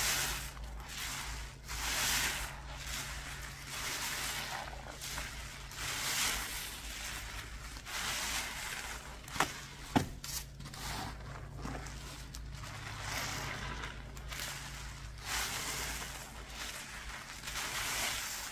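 Wet cleaning paste being worked, a swishing, sloshing sound that swells and fades in strokes about every two seconds, with two sharp clicks near the middle.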